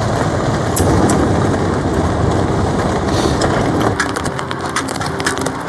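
Heavy rain drumming on a polycotton tarp. About four seconds in, quick sharp crackling pops start and soft background music with held tones comes in.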